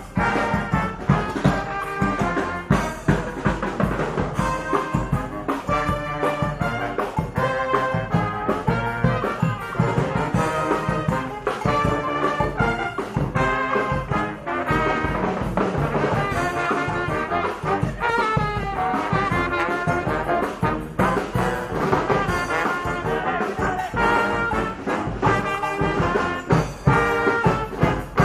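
Large street brass band playing live: trumpets, trombones and a sousaphone over drums, with a steady beat.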